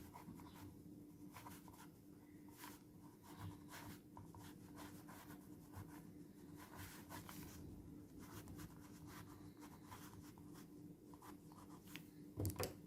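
Faint scratching strokes of writing by hand, coming in short irregular bursts over a low steady hum, with a slightly louder handling sound near the end.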